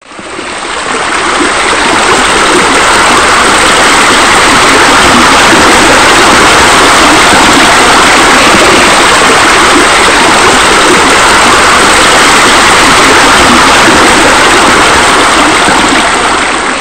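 Steady, loud rush of running water, like a waterfall or a spa spilling over into a pool. It fades in over the first couple of seconds and fades away at the end.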